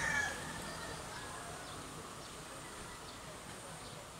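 The falling tail of a rooster's crow dies away about half a second in. After that there is only quiet outdoor ambience with a faint steady high insect drone.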